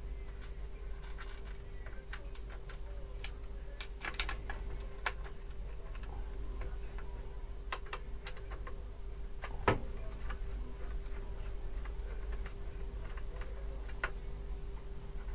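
Irregular small metallic clicks and ticks of a hand screwdriver undoing the two screws that hold a small oil pump on, with one sharper click about ten seconds in. A steady hum runs underneath.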